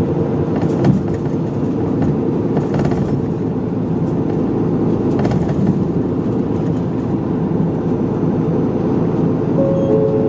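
Mid-size route bus driving along, heard from inside the passenger cabin: steady engine and road noise with a few light rattles.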